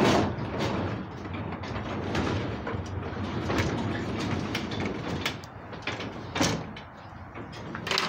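Sectional garage door rolling along its tracks, pushed by hand with the opener disconnected: a steady rumble with scattered clicks and knocks from the rollers and panels.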